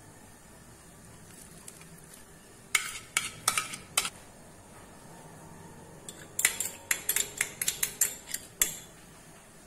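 Dishes clinking and tapping: a few sharp clicks about three seconds in, then a quick run of taps from about six seconds until near the end, as chopped onion and tomato are tipped from a ceramic plate and garlic is knocked out of a small glass bowl into the pot.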